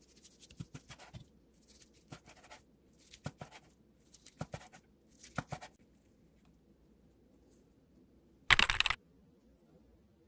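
A chef's knife slices through a seaweed-wrapped gimbap roll on a wooden cutting board, five cuts in the first six seconds. Each cut is a short crisp rasp through the seaweed wrap with a light tap on the board. About eight and a half seconds in comes a louder half-second rushing burst of noise.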